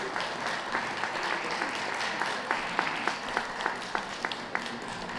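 Audience applauding: a dense, steady patter of clapping, with a handful of louder single claps standing out in the middle of the stretch.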